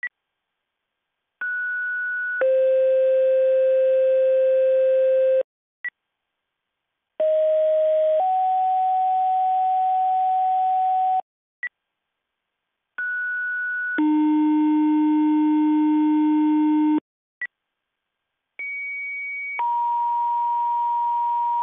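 Radio dispatch two-tone sequential paging tones: four pages, each a short steady tone of about a second followed at once by a longer steady tone of about three seconds, with a brief high beep between pages. These tone pairs set off the pagers of the fire and ambulance companies being dispatched.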